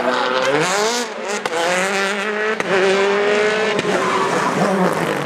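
Rally car accelerating hard out of a tight chicane, its engine rising in pitch and then held at high revs, with a few sharp cracks along the way.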